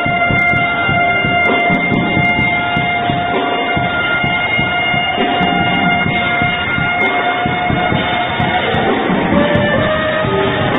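Alto saxophone holding one long note for about eight seconds, then playing shorter, changing notes near the end, over backing music.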